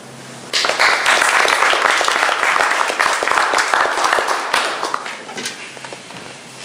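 Audience applauding, starting suddenly about half a second in and slowly dying down toward the end.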